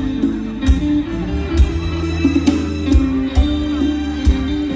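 Mor lam band playing live through a stage PA, with a plucked string lead over bass and drum kit and no singing.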